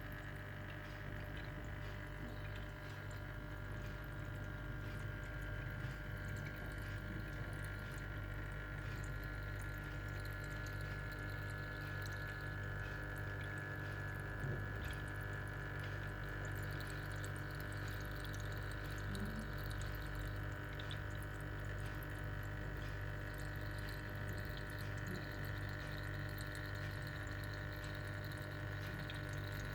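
Small homemade water fountain running: water steadily trickling and dripping, over a steady low hum.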